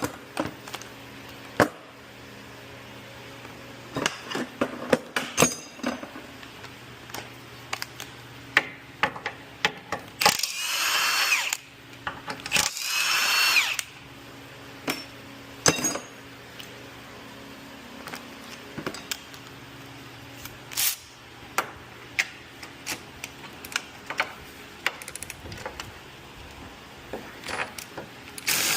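A power tool runs in two bursts of about a second each, a little past ten seconds in and again near thirteen seconds, with a wavering whine, amid scattered clicks and metal knocks of hand tools on a car's suspension parts.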